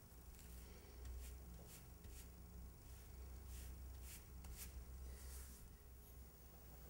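Faint, short scratchy strokes of a paintbrush laying thick acrylic paint onto canvas, about eight of them, over a low steady room hum.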